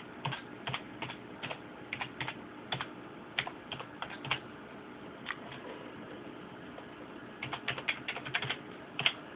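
Typing on a computer keyboard: irregular keystrokes in short bursts, with a pause of a couple of seconds in the middle and a quick run of keys near the end, as login details are entered.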